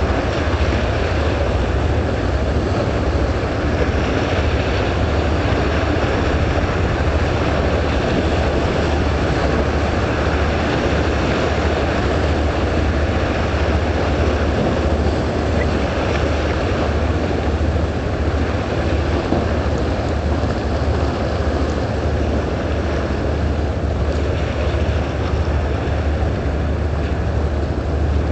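Steady low drone of a boat engine, mixed with a constant rush of wind and water.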